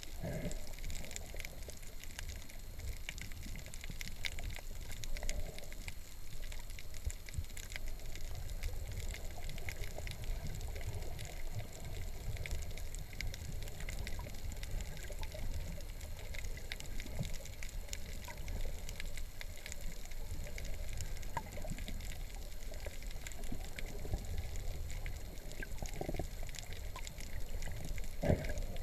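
Underwater ambience picked up through a GoPro's waterproof housing: a steady, muffled low rumble of water with many faint crackling ticks scattered throughout.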